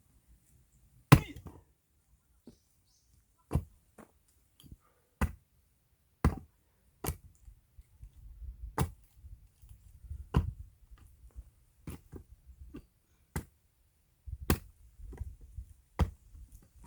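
Axe splitting firewood log rounds: about a dozen sharp chopping blows at an uneven pace, one to two seconds apart, the first the loudest.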